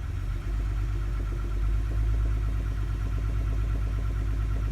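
2009 Toyota Highlander's 3.5-litre V6, held in gear against the brake, revved a little above idle, about half a second in, with a slight, rapid knocking running through the engine note. The owner hopes it is an exhaust leak; worn spark plugs are his other suspect.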